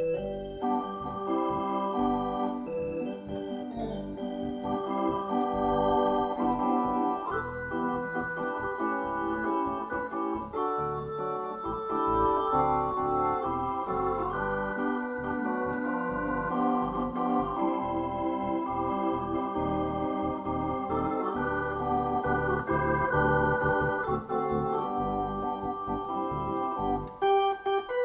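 Hammond C-3 tonewheel organ being played: chords held and changing on the manuals over low bass notes.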